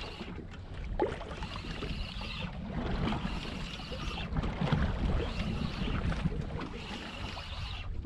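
Spinning or jigging reel being cranked in spurts, reeling in a small fish on a bent rod: a whirr that starts and stops about five times. Under it is steady wind and sea noise on the open water.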